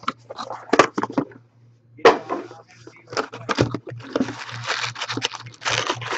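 Foil card-pack wrappers from a Bowman Platinum box crinkling and tearing as the packs are handled and ripped open, in irregular bursts of rustling and sharp crackles with a brief pause early on. A low steady hum runs underneath.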